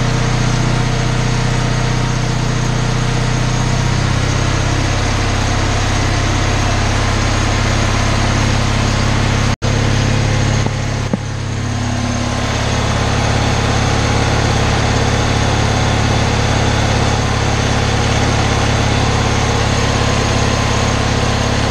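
Engine of a generator taken from an RV, running at a steady governed speed after starting. There is a momentary break near the middle, then a short dip and a shift in tone a little later.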